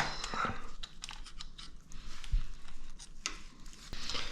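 Scattered small clicks and taps of engine parts being handled while a cam bearing is fitted into the cylinder head.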